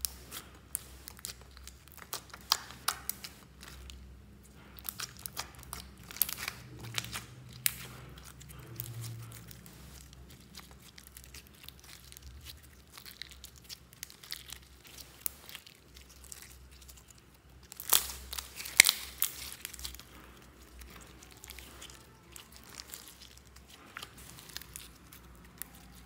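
Slime being kneaded and stretched by hand, giving an irregular run of sticky crackles and sharp little pops, with a louder flurry of crackling a little past the middle.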